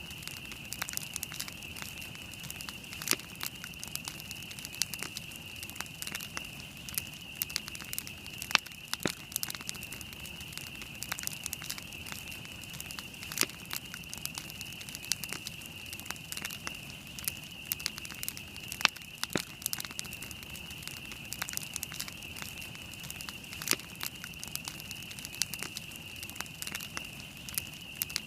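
Wood campfire burning, with sharp irregular crackles and pops over a steady high-pitched hiss.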